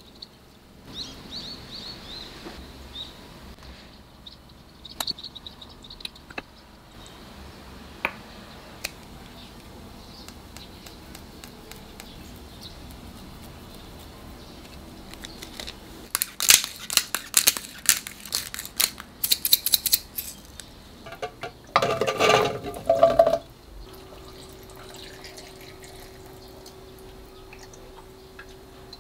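Kitchen food-prep sounds of cucumber toast being assembled: light clicks of chopsticks and cucumber slices, then, a little past halfway, a dense run of sharp crackly scrapes and clicks, and a louder rasping burst a few seconds later. A faint steady hum comes in near the end.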